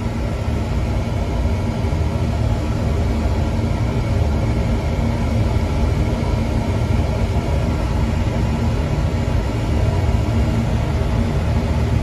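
Slant/Fin oil-fired boiler running, its oil burner firing with a steady low drone. It is still firing nearly nine minutes into a run that the owner fears is too long and wastes fuel.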